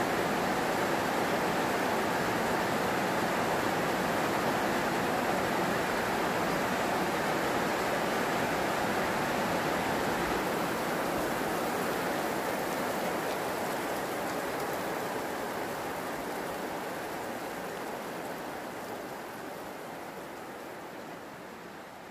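Heavy rain falling steadily, a dense even hiss, fading gradually over the last several seconds.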